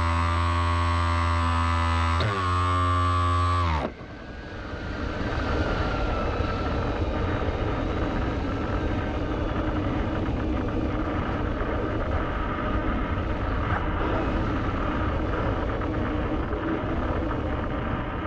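Small quadcopter's electric motors and propellers whining in flight. For the first few seconds the whine is steady and drops in pitch about two seconds in; after a sudden change near four seconds it becomes a rougher, noisier whir with wind rush and a faint whine that rises in pitch.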